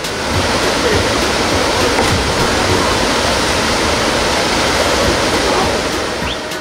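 Steady, loud rush of a mountain stream spilling over a small waterfall and rocks. It cuts in abruptly at full strength.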